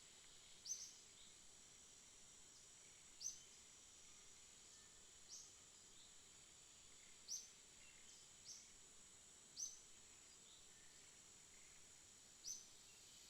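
Short, high chirps from a small aviary bird, repeating every one to three seconds over a faint steady high hiss.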